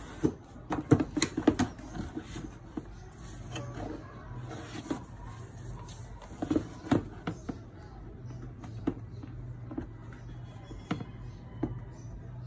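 Handling noises from a Huawei laptop being lifted, turned over and set back into its cardboard box: a quick run of knocks and taps in the first two seconds, another cluster about six to seven seconds in, and scattered single taps after, over a low steady hum.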